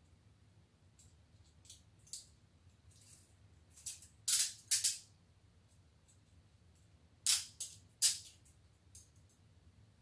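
TCH 822 steel chain-link handcuffs being handled and taken off the wrists. The chain and cuffs jingle and clink in short metallic bursts, loudest in two clusters about four seconds and seven seconds in, with a few lighter clicks between.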